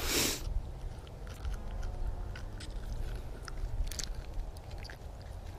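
Wind rumbling steadily on an action camera's microphone, with scattered small clicks, rubs and crackles from hands unhooking a small bass and its plastic worm close to the mic. A short rush of noise at the very start.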